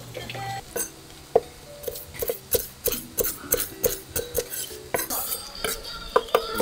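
Kitchen knife chopping fast through small whole fish onto a wooden cutting board: a steady run of sharp knocks, about four a second, starting about a second in.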